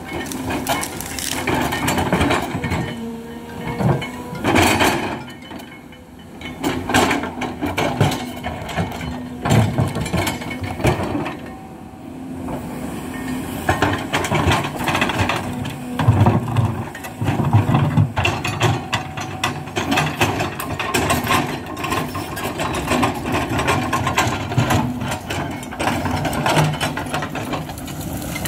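Hidromek HMK 220LC hydraulic excavator working: its diesel engine runs steadily under load while frequent knocks, clanks and scraping come from the machine's digging, swelling and easing every couple of seconds.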